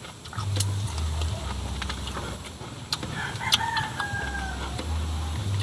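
A rooster crowing once, a held call of about a second starting about three seconds in, over close chewing and mouth clicks.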